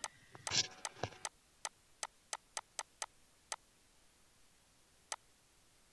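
Computer mouse button clicking: about ten sharp single clicks in quick succession over the first three and a half seconds, then one more about five seconds in.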